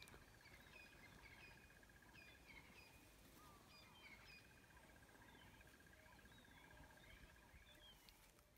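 Faint outdoor ambience of birds calling with short chirps and whistles. Over them runs a steady rapid trill that breaks off about two and a half seconds in and starts again around four seconds.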